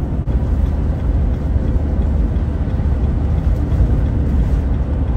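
Steady low rumble of road and engine noise inside the cab of a 2017 Peugeot Boxer-based motorhome cruising at motorway speed.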